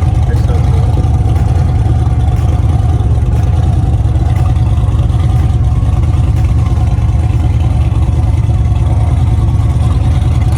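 Car cruising at steady highway speed: a loud, unbroken low drone of engine, road and wind noise.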